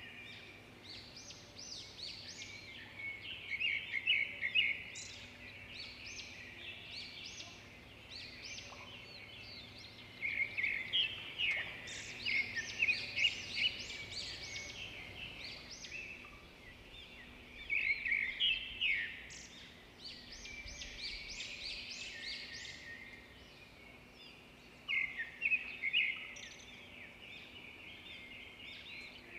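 Small birds chirping and twittering in several bursts of quick, high notes over a faint steady background noise.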